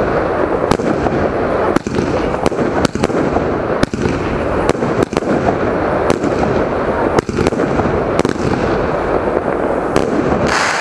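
Jorge Imagine JW162 firework battery firing shot after shot, sharp cracks coming about once a second over a steady rushing noise.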